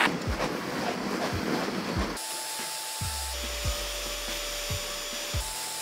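Carpet-cutting blade scraping as it is drawn through the carpet along the edge, for about the first two seconds, over background music with a low, steady beat. After that only the music is heard: held notes and the beat.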